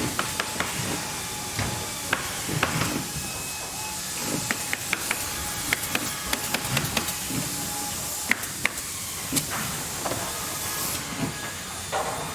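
Factory ambience: a steady hiss of machinery, with irregular knocks and clicks scattered throughout and a faint steady hum underneath.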